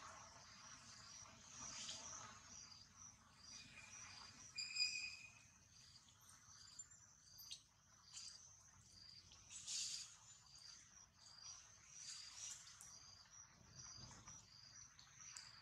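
Faint insects chirping in a steady run of short, high, evenly repeated pulses, with a brief call about four to five seconds in and a few soft rustles.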